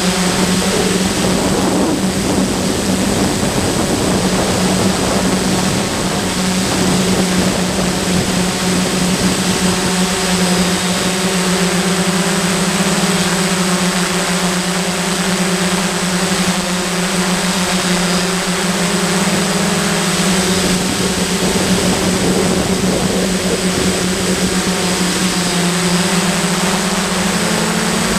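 DJI F550 hexacopter's six motors and propellers humming steadily in a hover, picked up by a camera mounted on the drone itself. The pitch rises slightly near the end.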